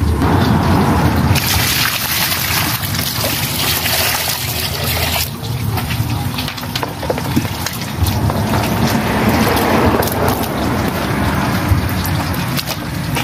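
Water pouring and splashing while eels and a wooden chopping board are rinsed: a steady gush of pouring from about a second and a half in that cuts off suddenly near five seconds, then lighter splashing and trickling over a low rumble.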